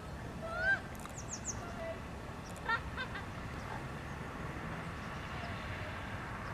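Geese honking: a few short, separate calls, the loudest just under a second in and another near the three-second mark, over steady background noise.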